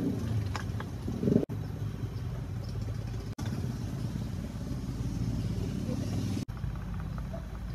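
A motor vehicle engine running steadily. About a second in, liquid is poured from a bowl into a wok, followed by light stirring with a spoon in the wok.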